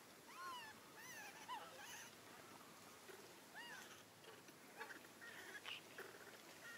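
Faint, short squeaky calls from young macaques, each rising and then falling in pitch, several in the first four seconds, followed by a few soft clicks and another brief call near the end.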